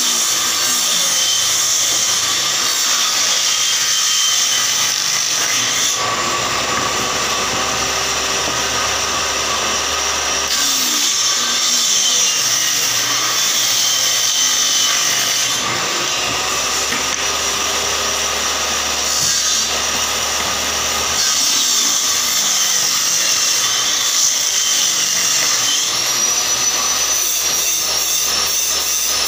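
Table saw running continuously while cutting wooden boards into strips, its sound shifting every few seconds as boards are fed through.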